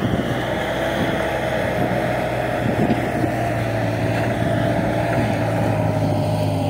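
Bobcat S130 skid-steer loader's diesel engine running steadily, a low drone with a steady high whine over it.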